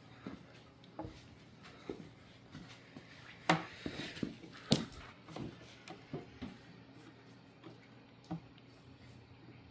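Scattered light clicks and knocks of hand tools and small metal parts being handled while fasteners are tightened, about seven or eight irregular taps, the sharpest about three and a half and nearly five seconds in.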